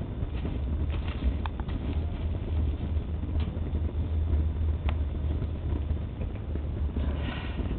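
Wind buffeting the microphone: a steady low rumble, with a few faint clicks scattered through it.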